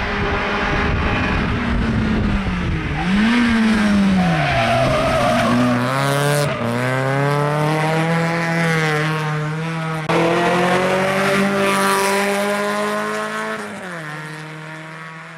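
Fiat Tipo 2.0 16V's four-cylinder engine at full throttle on a hill climb. It drops in pitch as the car slows for a hairpin about four seconds in, with a brief tyre squeal, then revs up through the gears. The note falls sharply at each upshift, about six and a half and ten seconds in, and fades as the car pulls away near the end.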